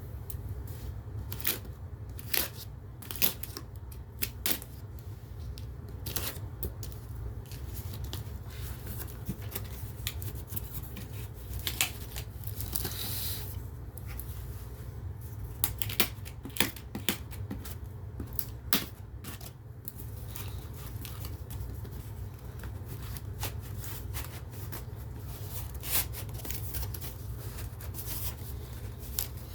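Hands unpacking a box: irregular clicks, knocks and rustles of packaging being handled, with a brief louder rustle about 13 seconds in, over a steady low hum.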